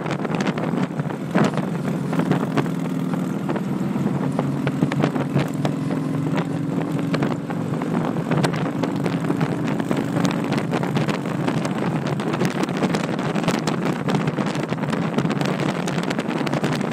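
Touring motorcycle engine running steadily at cruising speed, with wind noise on the microphone.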